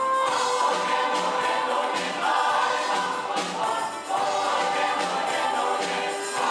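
Large mixed choir of men's and women's voices singing a gospel-pop song in harmony, with held notes.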